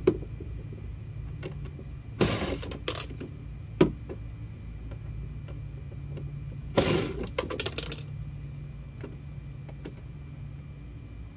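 Cordless drill run in two short bursts, backing screws out of a plastic Power Wheels ride-on car body, with sharp clicks and clinks between the bursts. A steady low hum runs underneath.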